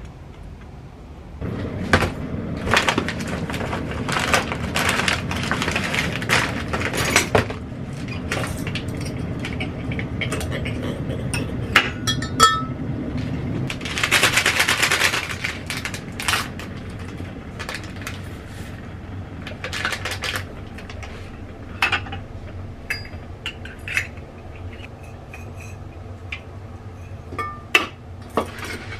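Clinks and knocks of glass and metal kitchenware handled on a counter: a glass teapot, a small metal cup and utensils, with a short rushing sound about halfway through.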